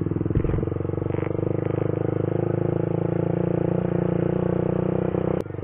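Motorcycle engine running steadily at low speed, heard close up from the handlebars, with a fine regular pulse in its note. Near the end the sound drops suddenly in level.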